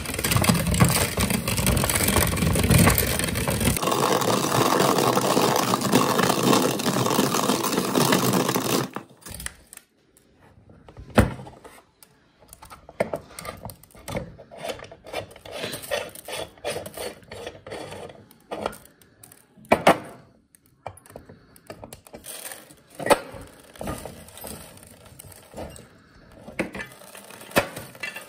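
Manual meat grinder crushing dry spaghetti. There is a dense, continuous crunching and grinding for about nine seconds, which stops suddenly. Then come scattered sharp cracks, clicks and scrapes as pasta pieces snap and the metal parts knock.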